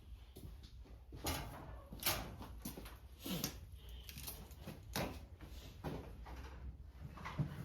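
Irregular clicks, knocks and rustles of tools and parts being handled on a workbench, about six sharper knocks spread through a low steady hum.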